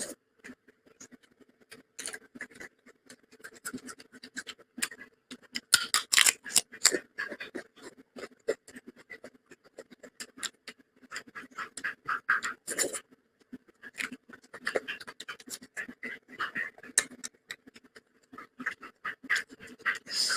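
Close-miked eating sounds: irregular wet clicks and smacks of chewing and mouthing rice with dal and palak gosht, with some scratchy scraping.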